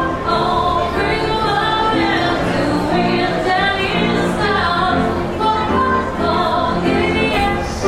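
A woman singing live into a microphone, accompanied by a grand piano.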